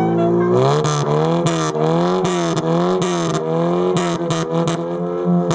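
Nissan Prairie's engine revved in quick repeated blips through a bosozoku-style upright exhaust, the pitch swooping up and down about twice a second.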